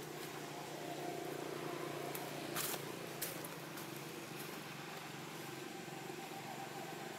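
Steady background hum and hiss, with a short rustle about two and a half seconds in and a sharp click just after.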